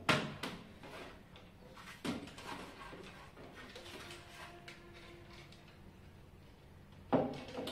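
Handling sounds as a router's cable connector is pulled apart and handled: a few short clicks and knocks, a louder one near the end, with faint rustling in between.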